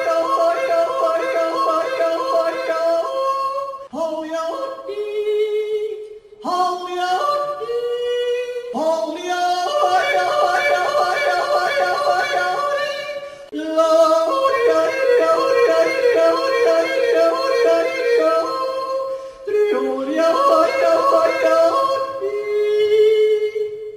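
A voice yodelling, flipping rapidly back and forth between chest voice and a high falsetto, in several phrases separated by brief breaks.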